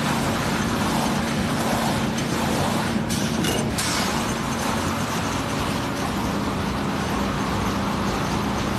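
Log planer machine running steadily with a constant hum and a dense rushing noise, with a brief sharper burst about three seconds in.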